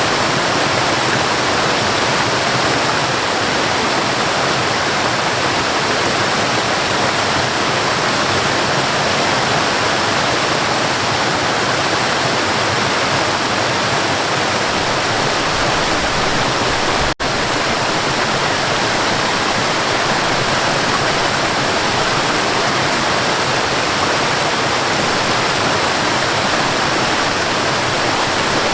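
Waterfall rushing steadily, with a momentary dropout to near silence about two-thirds of the way through.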